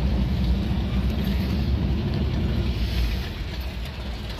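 Vehicle engine running, a steady low rumble that eases off slightly near the end.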